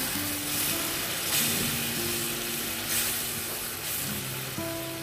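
Fish curry sizzling steadily in a pan on a gas burner, under background music of long held notes.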